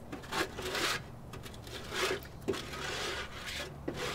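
Scraping and rubbing strokes as caked grease and debris are scraped out of the inside of a barbecue grill, in a series of irregular strokes.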